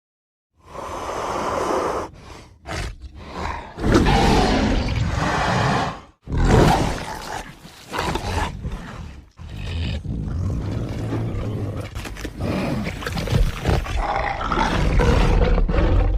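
A string of big-cat style roars and growls from a creature sound-effect set, starting after a short silence and coming in several calls of different lengths, the last ones long and drawn out.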